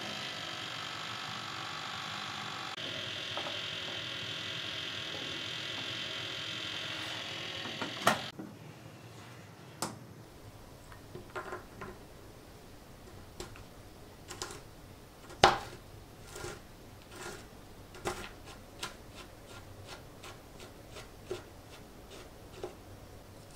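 A toaster oven running with a steady hum while macadamia nuts roast, ending in a sharp click about eight seconds in. After that come scattered clicks and knocks: roasted nuts tipped out of a ceramic bowl onto a cutting board, then a kitchen knife chopping them on the board.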